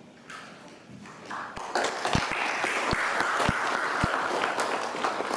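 Audience applauding, starting about a second in and carrying on steadily, with a few dull low thumps in the middle.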